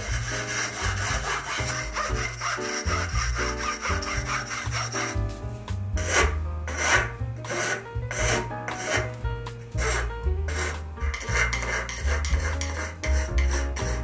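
Hand saw strokes rasping back and forth through a tube clamped in a saw guide, quick and even at first, then slower and more spread out from about five seconds in. Background music with a bass line plays underneath.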